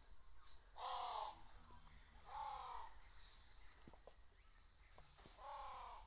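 A crow cawing three times, each caw a harsh call of about half a second.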